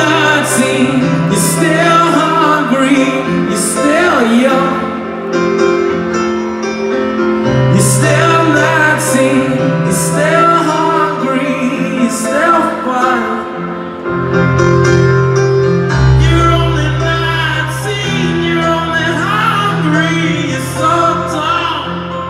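Live rock band playing a song in an arena, heard from the audience: a lead vocal over keyboard and bass with cymbal strokes, the bass dropping lower about two-thirds of the way through.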